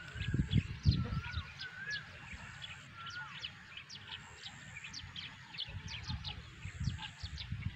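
Many small birds chirping rapidly, with a few warbling calls in the first three seconds. Irregular low rumbling on the microphone is loudest in the first second.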